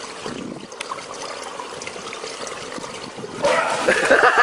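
A steady watery hiss with a few faint clicks, then a person starts laughing near the end, in quick repeated ha-ha sounds.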